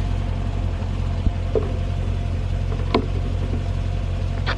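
Dodge Challenger Scat Pack's V8 engine idling with a steady low hum, with a few light clicks about 1.5, 3 and 4.5 seconds in.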